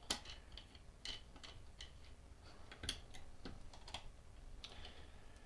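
Small parts being handled and adjusted by hand on a workbench: scattered faint clicks and taps, about half a dozen spread irregularly, quiet throughout.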